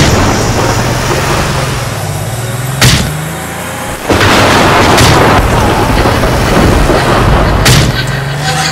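Cartoon sound effects for a monster-truck police car: a loud, low engine-like rumble that rises in pitch twice, broken by sharp booms about every two to three seconds.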